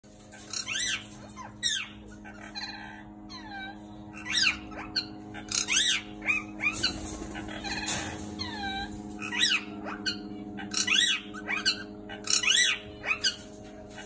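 Small aviary parrots chirping: a string of short, sharply sweeping chirps, repeated irregularly, over a steady low hum.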